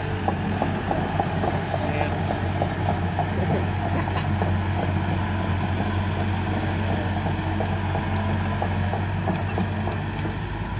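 Excavator's diesel engine running steadily as a low hum, with a light regular ticking over it during the first few seconds.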